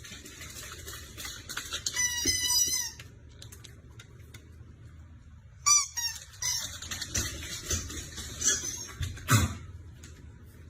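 A small animal making high-pitched squeaking calls in several short bouts, ending with one louder call that falls sharply in pitch.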